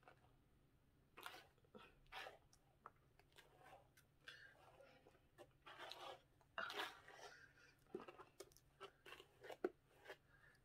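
Near silence with faint, scattered rustling and crackling as hands and a small brush work through a wet curly human-hair wig, the rustles thickest a little past halfway.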